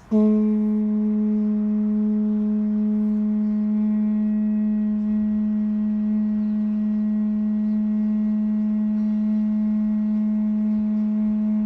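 Conch shell trumpet (pū) blown in one long, steady, loud note, which sounds abruptly and is held without a break.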